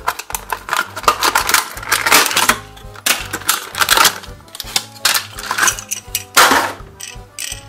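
Stiff clear plastic blister packaging crackling and crinkling as it is peeled open from its card backing and the toy is taken out, in dense irregular bursts with the loudest crackle about six seconds in, over background music.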